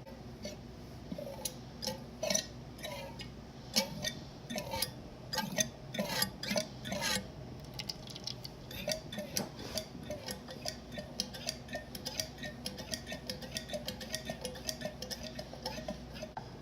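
A hydraulic mini-bike fork leg is being pumped by hand to force the old oil out. It makes a series of short clicking strokes, slow and uneven at first, then quickening to about three or four a second halfway through.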